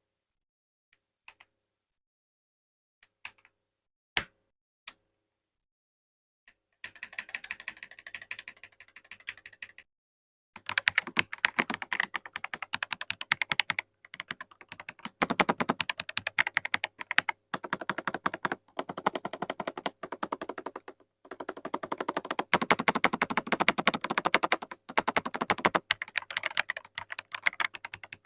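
Ajazz AK870 TKL SC mechanical keyboard with Maillard switches being typed on: a few separate keystrokes, then fast continuous typing from about seven seconds in, broken by a few short pauses.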